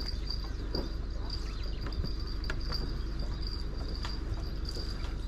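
A steady high-pitched trill like an insect's, over a low steady hum and a few light clicks.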